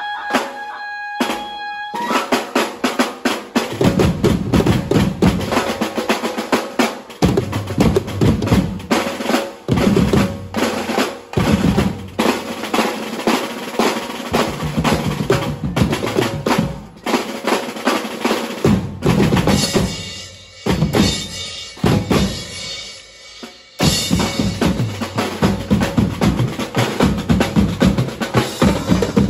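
A drum section of several players on tom-tom sets, cymbals and bass drums playing a fast, dense rhythm with rolls. A held melodic note carries over for about the first two seconds before the drums come in; the drumming thins out about twenty seconds in and returns in full some four seconds later.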